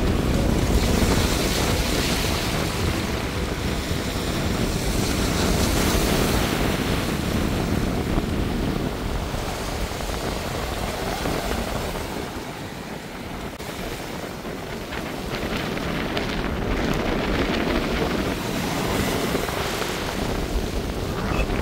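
Sea waves washing in over a beach of rounded pebbles and boulders, with wind rumbling on the microphone; the wash swells and ebbs, dipping for a couple of seconds just past the middle.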